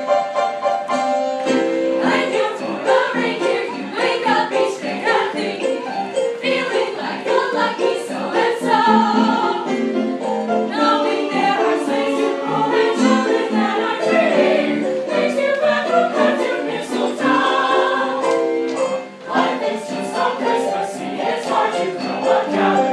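Recorded music with a group of voices singing, playing continuously, with a brief dip in loudness about three quarters of the way through.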